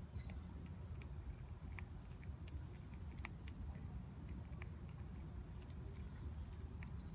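Black squirrel gnawing a peanut held in its paws: small, irregular crunching clicks, close up, over a low steady rumble.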